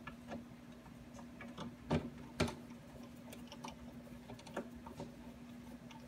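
Light scattered ticks and clicks of a hand screwdriver turning a brass screw up through a microwave door into its handle, with two louder clicks about two seconds in.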